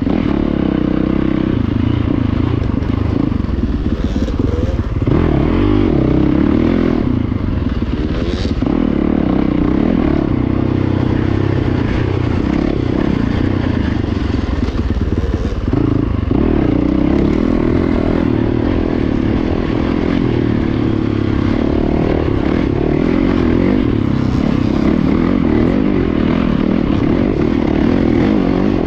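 Dirt bike engine running as the bike is ridden along a trail, its note steady with a few brief dips in revs.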